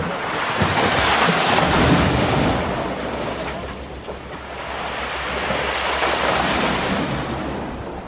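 Sea waves surging into a narrow rocky gully and splashing against the rock walls, swelling and ebbing twice. Wind rumbles on the microphone throughout.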